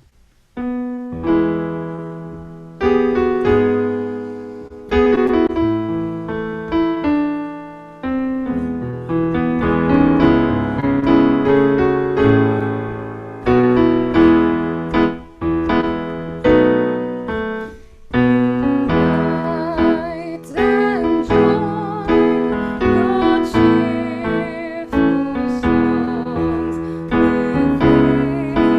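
Piano playing a slow piece in full chords, each struck chord ringing and fading before the next, starting about half a second in.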